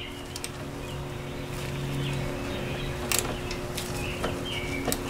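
A ratchet with an 8mm socket clicking a few times, irregularly, as it loosens the negative battery terminal nut. Birds chirp in the background over a steady low hum.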